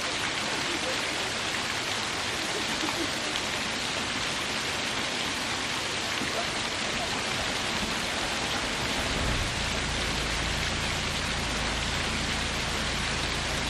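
Small waterfall: water falling and splashing in a steady, even rush. About nine seconds in a low rumble joins underneath and holds.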